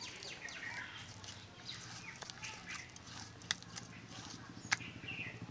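Fingers kneading and squishing a moist ground coconut-and-mustard paste in a clay bowl, in quick irregular strokes, with two sharp clicks in the second half. Birds call in the background.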